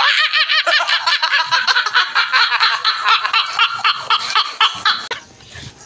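A person laughing hard in a rapid, high-pitched giggle, one short burst after another, that stops about five seconds in.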